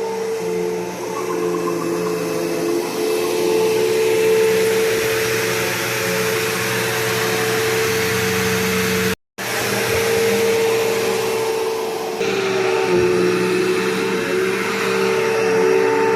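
Bissell PowerForce Bagless Turbo vacuum cleaner's 12-amp motor running steadily with a constant whine and airflow hiss. The sound cuts out for an instant about nine seconds in, and the hiss grows brighter about twelve seconds in.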